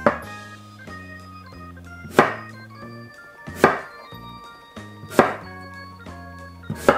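A knife chopping through an apple: five sharp cuts about a second and a half apart, over background music.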